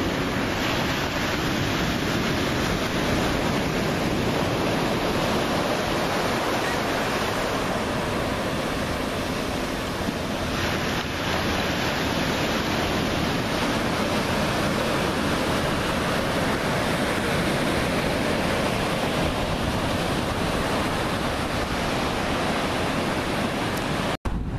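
Ocean surf: waves breaking in a steady, unbroken rush of noise, cut off for an instant near the end.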